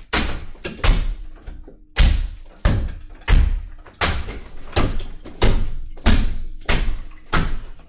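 Fire maul's blade end chopping into a lath and plaster wall: about a dozen hard strikes, roughly one every half second or so, each trailing off briefly as the wood lath and plaster break.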